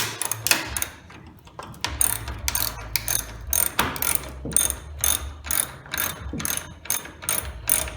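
Hand ratchet with a 10 mm socket turning a tailgate bolt: the pawl clicks on each back-swing, irregular at first and then settling into an even rhythm of about two strokes a second.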